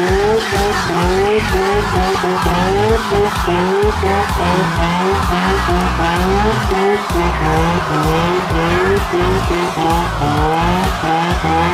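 Turbocharged three-rotor 20B rotary engine in a Nissan 240SX revving hard in repeated surges, its pitch climbing with each one, while the spinning rear tyres squeal through a burnout.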